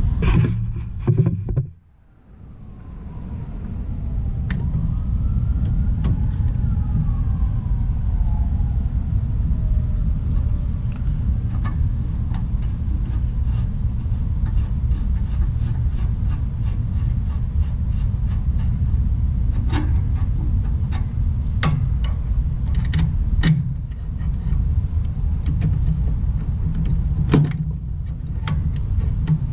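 A steady low rumble with scattered sharp metallic clicks and clinks, likely of hand tools on the mower's transaxle hardware. A faint siren rises and falls in the distance a few seconds in. The sound drops out briefly about two seconds in, then fades back up.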